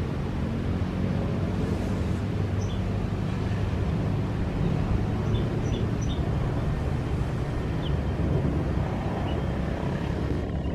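Steady low rumble of a distant airliner's jet engines, with a few short high chirps scattered through it.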